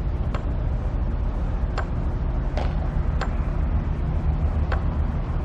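Steady low rumble of vehicle noise outdoors, with several sharp ticks scattered irregularly through it.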